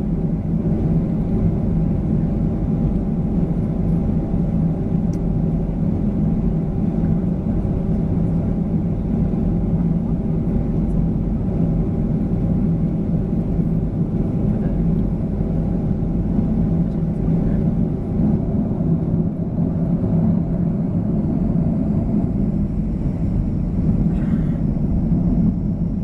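Steady cabin rumble inside a Boeing 737-900ER taxiing, its CFM56 engines at low thrust with a steady hum over the low roar and no build-up of power.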